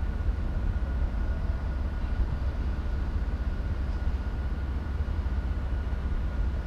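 Steady low outdoor rumble with a faint steady high tone running through it.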